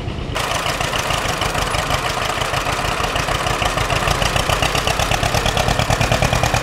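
John Deere two-cylinder tractor engine running as the tractor is driven slowly along, its firing strokes heard as an even, rapid beat. The sound cuts in abruptly about half a second in.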